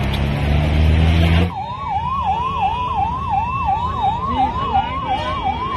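Ambulance siren in a fast yelp, its pitch rising and falling about three times a second, starting about a second and a half in. Before it, a low steady rumble with noise.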